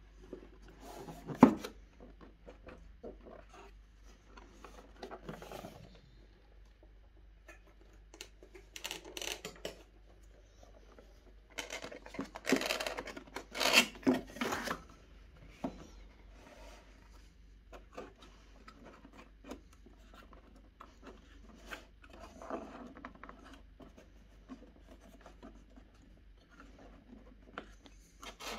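Cardboard box and inner cardboard tray being handled and opened: irregular rubbing and scraping of cardboard, with a sharp knock about a second and a half in and the loudest scraping around the middle.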